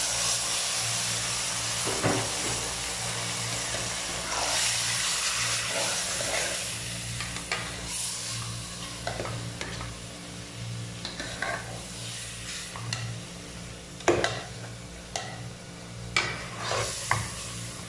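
Raw chicken pieces sizzling in hot oil in a stainless steel pot as a metal spatula stirs them. The sizzle eases after about ten seconds, and in the second half the spatula clinks sharply against the pot a few times.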